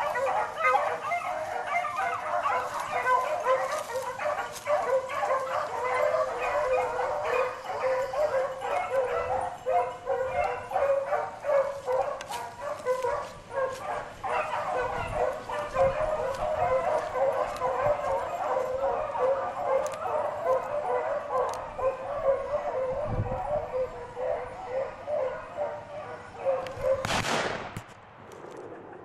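A pack of beagles baying continuously, many voices overlapping as they run a rabbit's track. A brief rushing noise near the end, after which the baying fades.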